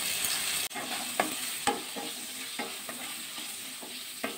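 Potato cubes frying in hot mustard oil in a kadai: a steady sizzle, with a spatula stirring and scraping against the pan in short strokes a couple of times a second. The sizzle drops suddenly less than a second in.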